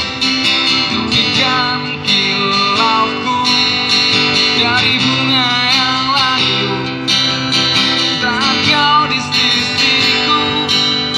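Amplified acoustic guitar strummed in the instrumental break of a pop song, played through a PA speaker, with a wavering, sliding melody line above the chords.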